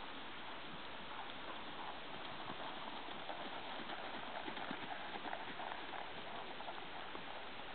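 Hoofbeats of an American Paint Horse mare cantering on arena sand, growing louder as she passes close about four to five seconds in, then fading, over a steady hiss.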